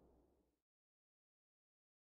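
Near silence: a faint low tail dies away about half a second in, then dead silence.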